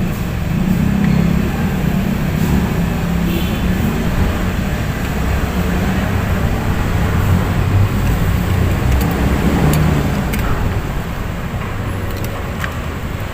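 Steady low rumble of motor-vehicle traffic, with a few faint clicks.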